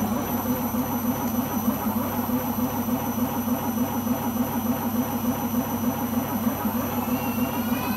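Beko washing machine running in a spin with a loud, rough, pulsing drone and a steady hum. Near the end a whine starts rising in pitch as the drum speeds up. The owner puts the strange noises down to the rubber behind the drum.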